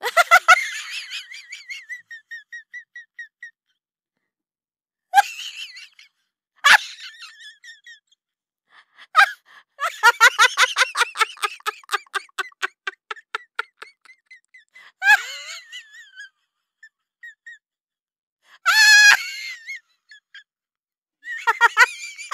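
Chimpanzees calling in a run of separate short bursts. The longest, about ten seconds in, is a quick series of pulsing hoots lasting some four seconds, and there are shorter, higher calls at other moments.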